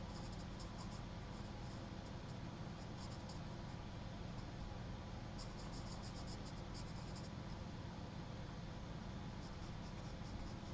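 Charcoal pencil scratching on sketchbook paper in short runs of quick strokes, several times over. A steady low hum and hiss of room noise sits under it.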